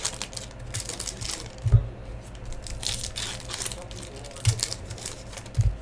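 Shiny trading-card pack wrappers crinkling and tearing as packs are ripped open by hand, with three dull thumps among the crackle.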